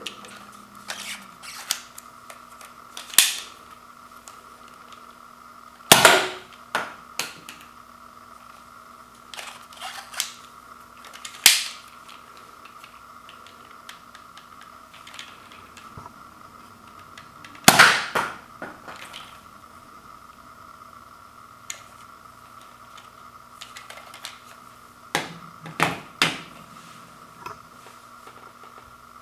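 Plastic clicks and sharp snaps from a Zuru X-Shot MK3 toy dart blaster being handled, primed and loaded with foam darts in its manually rotated barrel. The clicks come in scattered groups, with the two sharpest snaps about six seconds in and about eighteen seconds in.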